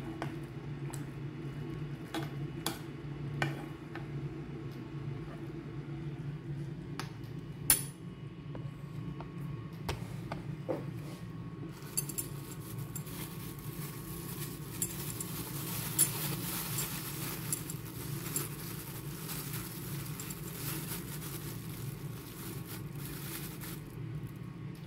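Metal spoon clinking against a pan and a stone counter, with a few sharp clinks, and from about halfway a plastic bag rustling as it is opened. A steady low hum runs underneath.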